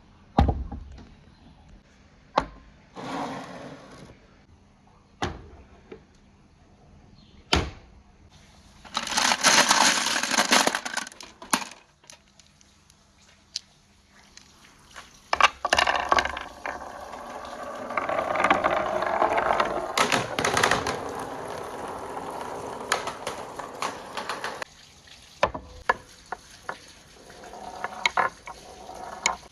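Marbles rolling through PVC pipes and rain gutters, with sharp clicks and clacks as they strike the track and each other, and longer rolling rushes as many marbles pour through together.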